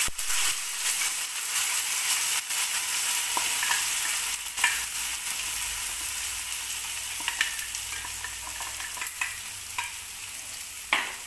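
Ground masala paste poured into a pan of hot ghee with shallots and dried red chillies, sizzling steadily as it fries. A few sharp clicks and scrapes of the steel mixer jar and spoon against the pan, the last and loudest near the end.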